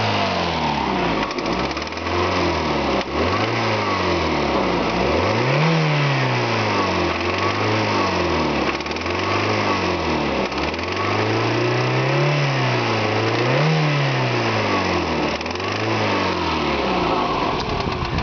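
A Toyota 3S-GE twin-cam four-cylinder engine is revved in a series of throttle blips, its pitch rising and falling every second or two. Over it runs a loud ticking top-end rattle, which the owner suspects may be a valve seat now that the valve springs have checked out fine.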